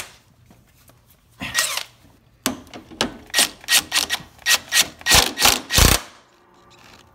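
Cordless impact wrench with a 3/4-inch socket run in a string of short bursts, about a dozen in quick succession, tightening the nut that holds the steering pinion gear on a lawn tractor.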